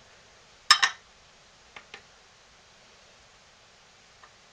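A small glass clinking against a hard surface as it is set down and handled: a sharp double clink about a second in, two faint taps near two seconds and a faint tick near the end, over quiet room tone.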